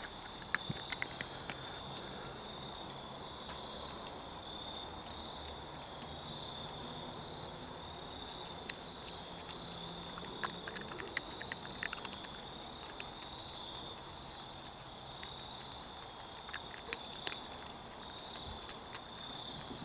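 Crickets trilling steadily at one high pitch, with a faint low hum underneath and scattered small clicks.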